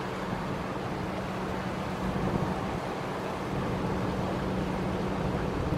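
The ferry Sunflower Satsuma's machinery running with a steady low hum as the ship pulls away from its berth, under a haze of wind noise on the microphone.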